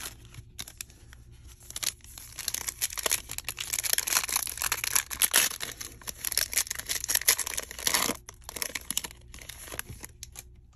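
Foil wrapper of a Panini Prizm basketball card pack being torn open and crinkled: a dense crackling rustle that starts about two seconds in and goes on in fits until near the end.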